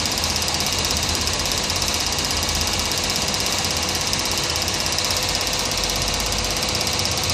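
Small electric pump on a diesel-filter test rig running steadily with a fast buzzing pulse, pumping liquid through the fuel filters.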